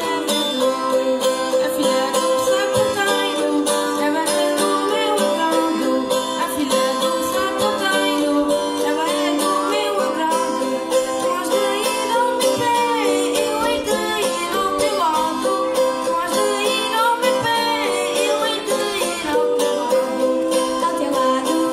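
Traditional folk music: small guitars strummed steadily in a lively rhythm, with voices singing over them.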